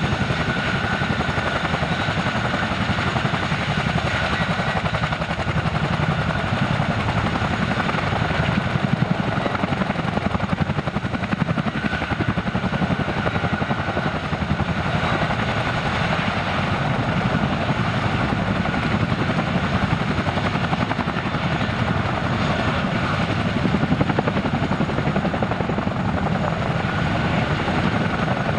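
Boeing CH-147F Chinook tandem-rotor helicopter running on the ground with both rotors turning: a steady, rapid rotor beat under a constant high whine from its turbine engines.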